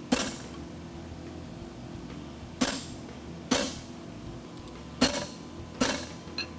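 Five hammer blows on a handled hot-cut chisel driven into red-hot 1-inch A36 steel bar on an anvil, cutting the head off a farrier's fuller. Each blow is a sharp metallic strike with a short ring, at uneven intervals of one to two and a half seconds.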